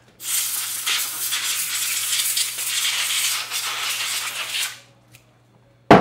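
Can of compressed air blowing one long hissing burst of about four and a half seconds through its straw into the Logitech G700's left-click Omron micro switch, to clear out the dirt that makes the click break contact. A single sharp knock near the end.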